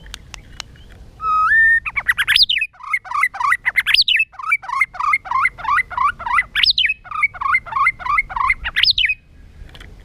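White-rumped shama singing: two faint clicks, then a clear rising whistle about a second in, followed by a fast run of repeated whistled phrases, about three a second, broken four times by notes that sweep sharply upward. It is the shama's competitive fighting song. The song stops about a second before the end.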